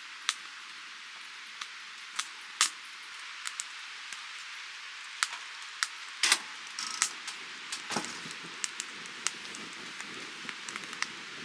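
Wood fire burning in a wood stove, crackling with irregular pops and snaps over a steady hiss, with a couple of louder snaps about six and eight seconds in.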